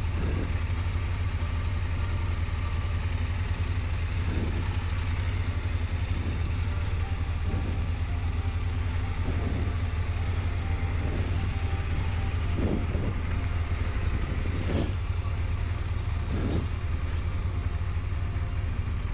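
BMW motorcycle engine idling steadily with a low hum while the bike stands still.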